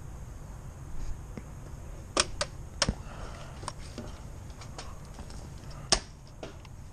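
A scatter of sharp clicks and taps, about eight, some in quick pairs, over a low steady rumble.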